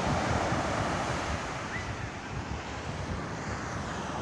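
Small surf waves breaking and washing up a sandy beach, with wind buffeting the microphone.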